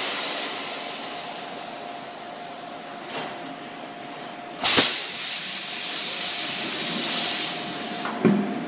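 Compressed air hissing out of a semi-automatic PET blow molding machine as the blowing stage ends. A fading hiss, a short puff about three seconds in, and then a sudden loud blast of air a little before five seconds that keeps hissing until about eight seconds. A short clunk follows, over a faint steady tone.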